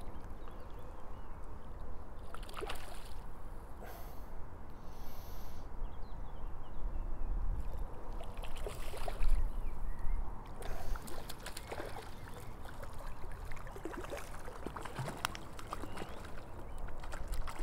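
Lake water lapping and splashing close to the microphone over a steady low rumble, with sharper splashes and knocks clustering in the second half.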